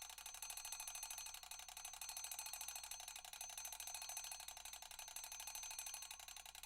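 Mechanical alarm bell ringing: the hammer rattles very fast against the bell, giving a continuous metallic clatter over steady ringing tones.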